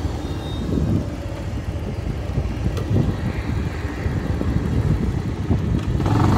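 Motorcycle on the move: a continuous low rumble of engine and wind buffeting the microphone as it rides along.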